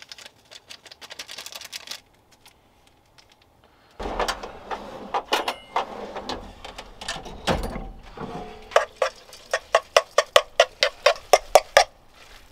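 A utensil working eggs in a cooking pan: scattered knocks and scrapes, then from about two-thirds of the way in a run of even, ringing strokes about three to four a second as the eggs are stirred.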